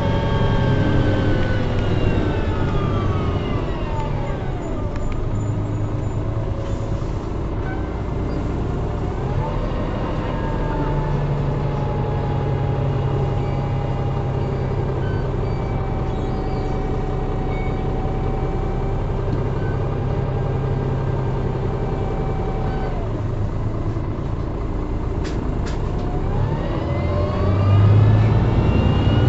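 Cummins ISMe diesel and Voith DIWA automatic gearbox of a Transbus Enviro500 bus, heard from inside the cabin: engine and drivetrain whine falling as the bus slows in the first few seconds, then running at a fairly steady pitch, falling again, and rising as the bus accelerates near the end.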